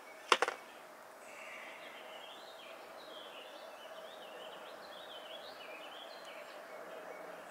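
A sharp double click shortly after the start as an air-rifle pellet magazine is handled and loaded. Then birds sing in quick, wavering chirps over a steady outdoor background with a faint constant hum.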